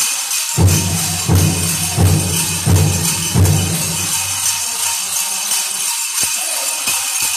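Dancers' bells jingling steadily, with a large powwow drum struck in a slow, even beat of about one stroke every 0.7 seconds that starts about half a second in and dies away after about four seconds.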